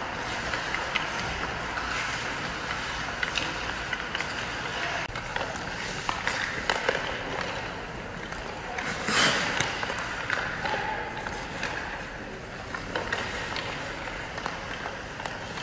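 Ice hockey skates carving and scraping on rink ice, with scattered clicks of stick and puck, in an echoing arena; a loud skate scrape about nine seconds in.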